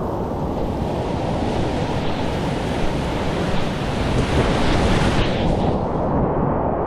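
Whitewater rapids rushing at high flow, heard from a kayak-mounted camera close to the water, with buffeting noise on the microphone.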